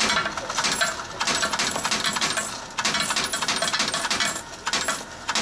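Coin-laundry bill changer paying out a run of 500-won coins that clatter into its coin tray, in several bursts with brief pauses between them.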